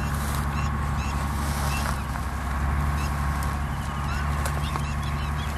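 Steady low drone of an engine running without change, with small birds chirping in short calls over it.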